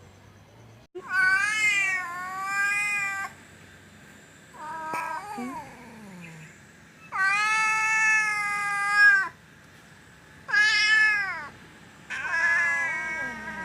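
Domestic cat meowing five times. The meows are long and drawn out, and the second one is fainter and falls in pitch.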